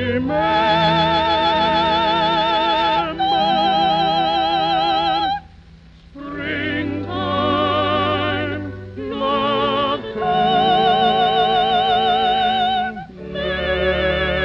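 Operatic soprano and baritone singing a duet of long held notes with wide vibrato, over orchestral accompaniment, from a 1937 film soundtrack recording. The singing breaks off for about a second around five and a half seconds in, then resumes.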